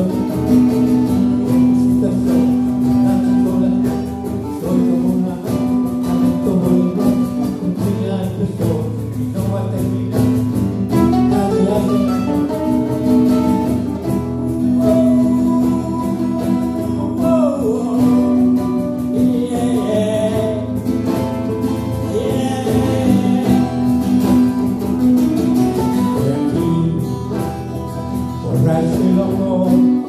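Live acoustic band playing a Latin rock song: acoustic guitar strumming and mandolin, with a sung vocal.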